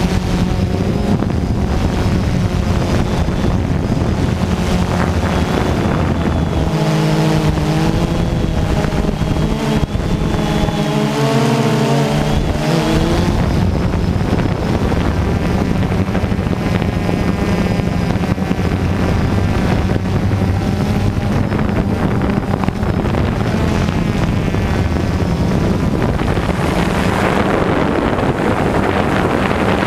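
Drone's electric motors and propellers humming steadily, recorded from the camera mounted on the drone, with wind noise on the microphone. For several seconds near the middle the pitch wavers and shifts up and down.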